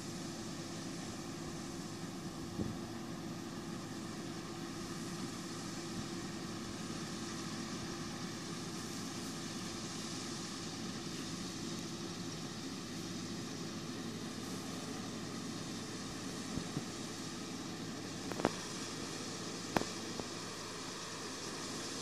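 Combine harvester running steadily while harvesting oilseed rape, a continuous drone with a hiss over it. A couple of sharp clicks stand out near the end.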